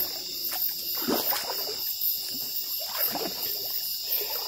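Steady high-pitched chorus of night insects such as crickets, with irregular sloshing and splashing of water.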